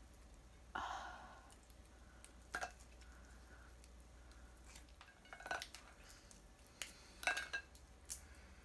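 Snow crab leg shells cracked and snapped apart by hand, with shell pieces clicking against a plate: a short rustle, then several separate sharp cracks and clicks, the loudest about two-thirds through.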